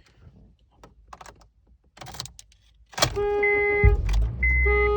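A few light clicks, then about three seconds in a sharp click and the Honda Fit's panic alarm sets off as the car is started. The car horn sounds in long blasts about a second and a half apart, with a high steady beep between them, over a low engine rumble.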